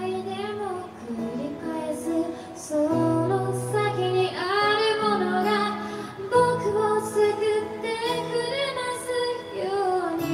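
A woman singing a slow, melodic vocal line live, accompanied by her own acoustic guitar holding low notes underneath.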